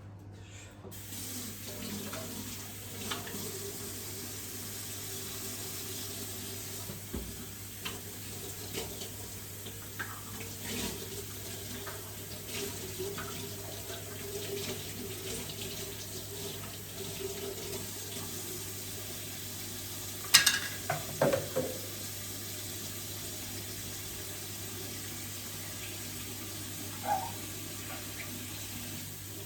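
Tap water running steadily into a sink, with scattered light knocks and, about two-thirds of the way through, a louder clatter of several knocks in quick succession.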